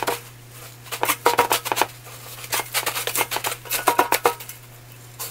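Hands pressing and patting loose breadcrumbs onto raw chicken breast pieces in a stainless steel tray: a crisp, crunchy rustling in two spells.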